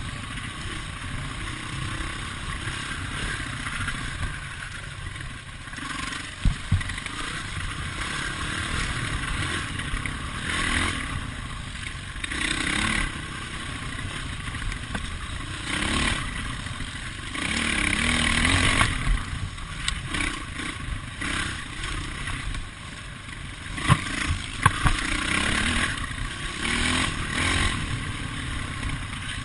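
Dirt bike engine running and revving up and down on a rough forest trail, close to a bar-mounted camera, with wind noise and a few sharp knocks and rattles as the bike hits bumps.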